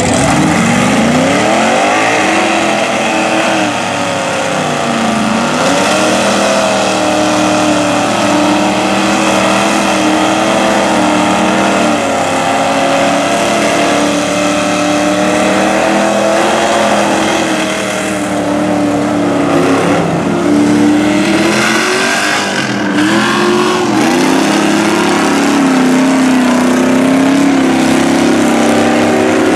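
Mud bog trucks' big engines revving hard under full throttle. The pitch climbs steeply at the start, then dips and surges again and again.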